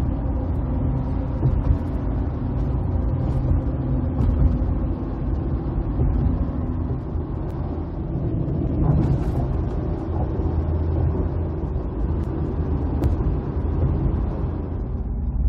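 Steady road and engine noise of a vehicle driving at highway speed, heard from inside the cab: a low, even rumble, with a brief brighter rush about nine seconds in.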